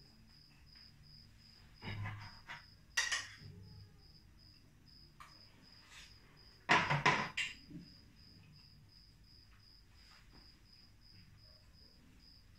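Plate and cutlery clattering in a few short bursts as food is eaten: about two and three seconds in, and loudest about seven seconds in. Under it a cricket chirps steadily, about two to three chirps a second.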